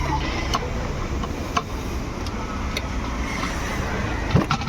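Hand tools working loose the intercooler fittings on a Toyota Fortuner engine: a few sharp metallic clicks and knocks, the loudest near the end, over a steady background rumble.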